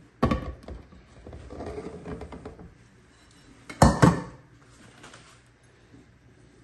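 A white ceramic serving plate laid over a bundt mold and the two flipped over together to turn out a bread pudding. There is a clatter of dish against mold near the start and some handling noise, then two loud knocks about four seconds in as the upturned mold and plate come down on the granite counter.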